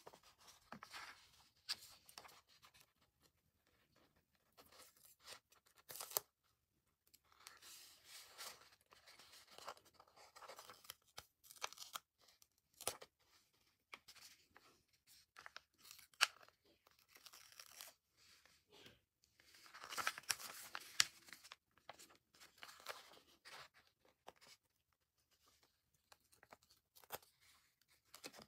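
Faint, intermittent rustling and crinkling of a glossy sticker sheet being handled, with stickers being peeled off its backing and a few sharp clicks.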